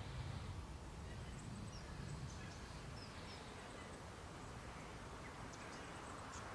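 Faint open-air ambience: a steady low rumble with a few short, faint bird chirps in the first half and a few light clicks near the end.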